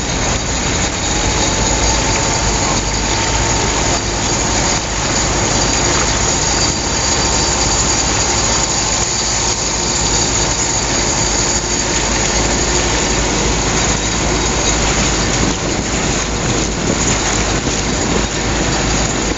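Volkswagen Schwimmwagen Typ 166 amphibious car under way on a river: its air-cooled flat-four engine runs steadily, mixed with a constant rush of water and wind.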